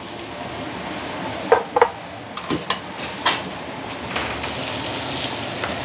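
Tiger prawns sizzling in a frying pan as sambal chili paste is scraped in from a bowl and stirred, with a few sharp clicks and knocks of spatulas against the pan and bowl. The sizzle grows louder about four seconds in.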